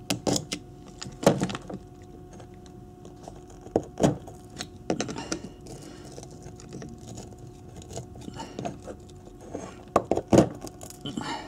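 A small screwdriver scraping and prising at the old copper winding of a Honda CB250N ignition stator coil, in scattered scratches and sharp clicks, over a faint steady hum.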